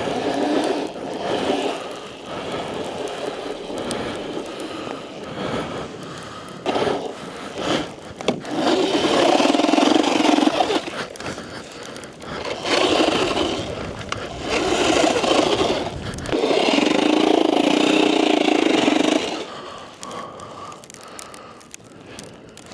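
Sur Ron electric dirt bike ploughing through deep, frozen snow: the tyres churn and scrape through the snow in several long surges, loudest around the middle, then easing off near the end.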